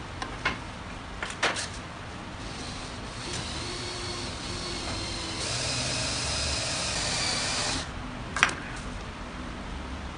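A small electric power tool running for about five seconds with a steady whine. It gets louder partway through and then cuts off suddenly. A few knocks come before it and a sharp click follows.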